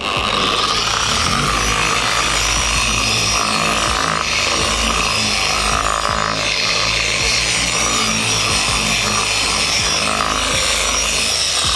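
Meguiar's MT320 dual-action polisher running steadily at its slowest speed, spreading polish over car paint with a soft yellow foam polishing pad.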